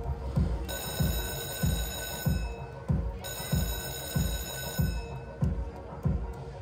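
Lightning Dollar Link slot machine ringing its jackpot bell in two long rings, over a steady bass beat from the machine's music. This is the handpay jackpot alarm, sounding while the machine waits for an attendant.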